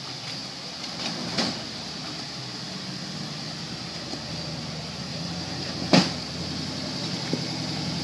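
Rock crawler buggy's engine running at low speed as it crawls down a rock ledge, growing slightly louder as it comes closer. Two sharp knocks cut through it, one about a second and a half in and a louder one about six seconds in.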